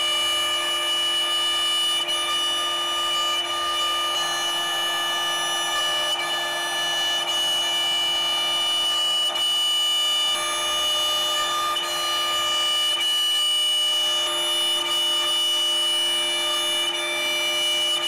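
CNC router spindle running at speed with a steady whine of several tones over the hiss of the cut, as a two-flute up-spiral bit routes parts out of a plywood sheet.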